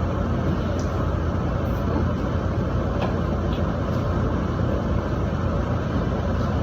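Steady low hum with a hiss over it, unchanging throughout, and a few faint ticks.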